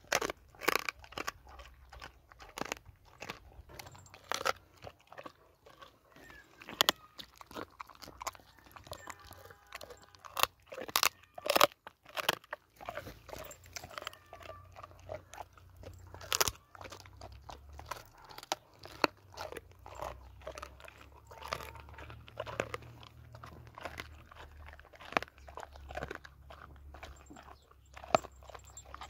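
Kangal dog gnawing on a raw skinned leg bone, with irregular sharp crunches and cracks of teeth on bone and meat throughout.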